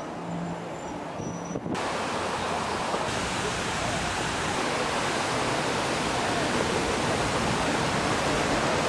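Steady, loud rushing of water that cuts in abruptly about two seconds in, after a low hum.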